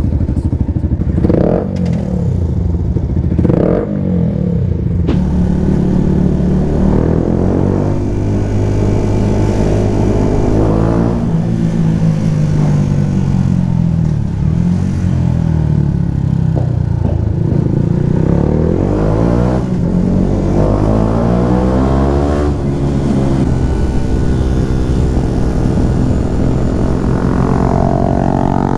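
Yamaha 125 motorcycles riding, their single-cylinder engines breathing through loud aftermarket exhausts (an MT-125 with an Akrapovic titanium racing system and a YZF-R125). The engine pitch climbs and drops again and again as the bikes rev and change gear.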